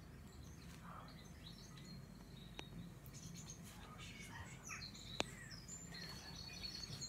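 Small birds chirping and calling from a nature video, heard faintly through a TV's speakers over a low background hum. A sharp click about five seconds in, and a softer one a little before the three-second mark.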